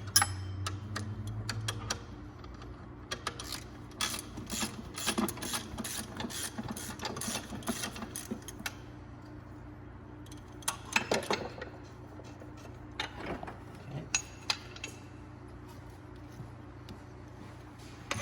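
Ratchet wrench clicking in quick runs as bolts are worked loose, then scattered metallic clicks and clinks of tools and parts.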